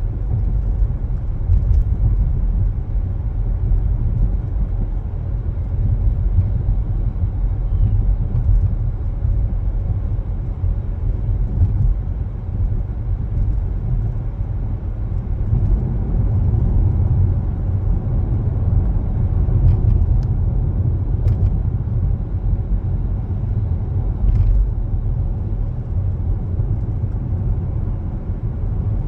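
Car driving along, a steady low rumble of road and engine noise, with a few faint ticks in the second half.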